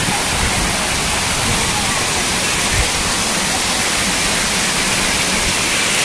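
Small waterfall cascading down rock steps: a loud, steady rush of falling water.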